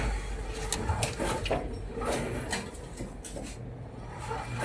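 VAZ-2107 being pushed by hand over rough, muddy gravel: a string of scattered short crunches and knocks from footsteps and the rolling car, over a low rumble.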